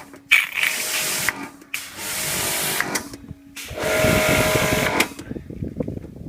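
Karcher electric pressure washer firing in three bursts of about a second each as the lance trigger is pulled and released: motor and pump running up with the hiss of the spray, a low steady hum in the short gaps between. The motor, said to be burnt out, runs again after a new overheat thermostat.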